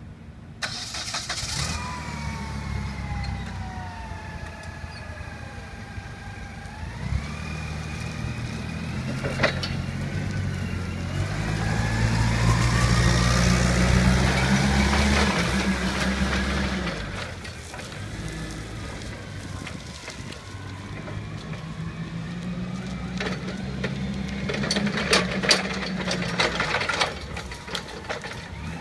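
Propane-fuelled Yale forklift engine running while the truck drives and turns, revving up and getting louder in the middle. A whine falls in pitch over the first few seconds, then rises. A spell of rattling clanks comes near the end.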